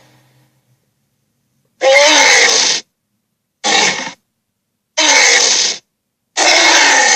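A series of short creature-like vocal sound effects, snorts and growls, four in a row, each cut off abruptly with dead silence between.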